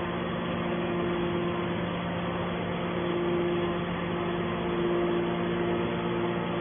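Hydraulic metal baler running with a steady machine hum, holding a low tone and a higher one throughout.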